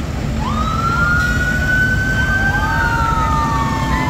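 A siren winding up into a high wail and then slowly falling, with a second, lower siren tone joining about halfway through, over a steady low engine rumble.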